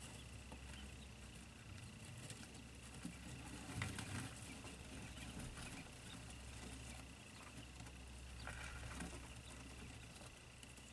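Day-old quail chicks pattering and scratching about, with small scattered ticks of feet and beaks, over a steady low hum.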